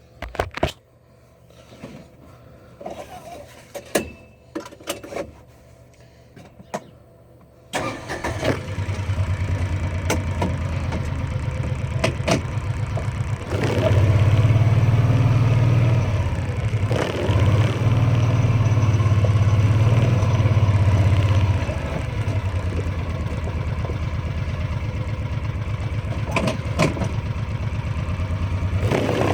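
A few clicks and knocks, then about eight seconds in a vehicle engine starts and keeps running with a low, rapidly pulsing rumble. It grows louder for several seconds in the middle, then settles back to a steadier run.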